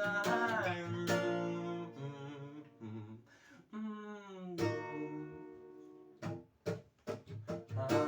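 Music: a voice holds one sung word, then acoustic guitar chords are strummed, with a brief lull in the middle and a few sharp, short strums near the end.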